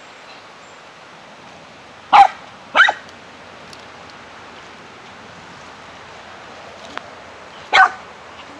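Small dog barking at moving water: two sharp barks about two seconds in, half a second apart, and a third near the end, over a faint steady hiss.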